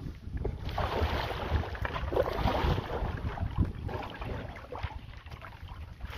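Wind buffeting the microphone in gusts, with a steady rushing noise of moving air or water.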